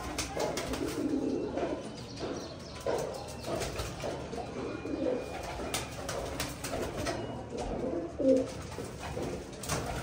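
Several domestic pigeons cooing, their low calls overlapping throughout, with scattered short clicks and taps among them.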